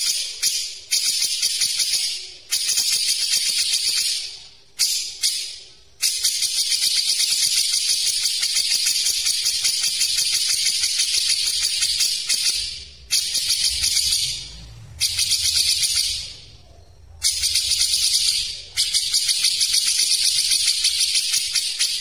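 Grey-cheeked bulbul (cucak jenggot) singing a fast, tightly packed chattering song: long runs of rapid high notes broken by short pauses.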